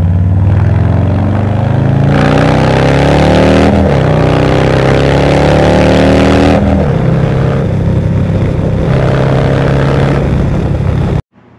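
Harley-Davidson Low Rider ST's Milwaukee-Eight 117 V-twin exhaust, recorded close to the pipes while riding. The bike pulls hard with the pitch climbing, and the pitch drops at upshifts about 4 and 7 seconds in. It then runs at a steady cruise and cuts off suddenly near the end.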